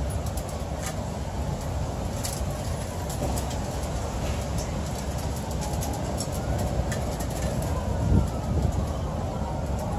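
Steady low rumble of city traffic, with scattered faint ticks and a brief low thump about eight seconds in.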